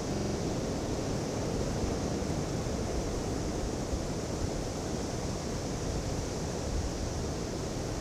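Steady, even rushing noise with no distinct events, heaviest in the low range: an ambience of the surf or wind kind.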